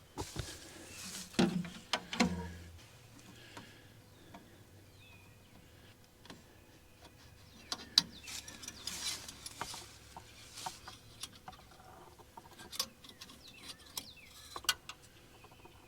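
Irregular clicks, taps and short scrapes, with a few faint bird chirps.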